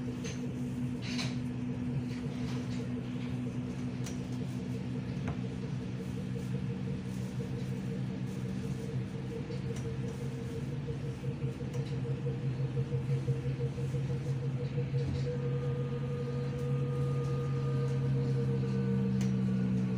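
Hamburg U-Bahn DT4 train running through a tunnel, heard from inside the car: a steady hum of several low tones from the electric traction drive over the rumble of the wheels on the rails. In the last few seconds a higher whine comes in and slowly rises in pitch as the sound grows a little louder.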